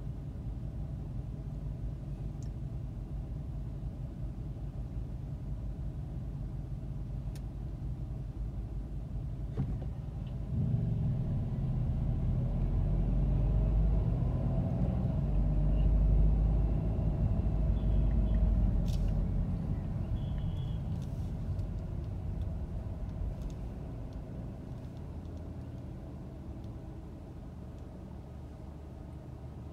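Car running in city traffic: a steady low rumble while stopped, which swells from about ten seconds in as it pulls away from the light, then eases off.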